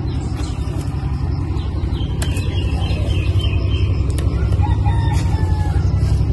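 Steady low rumble that grows a little louder, with faint bird chirps above it.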